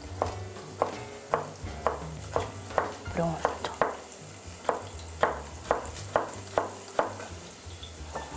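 Chef's knife chopping celery on a cutting board, a sharp knock about twice a second with a short pause midway. Under it, onion sizzles steadily as it fries in oil in the pan.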